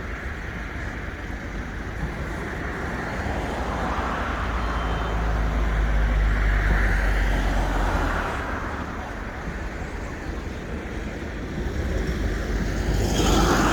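Road traffic: motor vehicles passing, one swelling and fading away near the middle, another coming up near the end.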